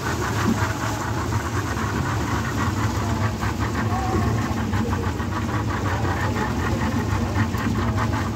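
Motorboat engine running steadily under way, with water splashing and slapping against the hull in choppy water.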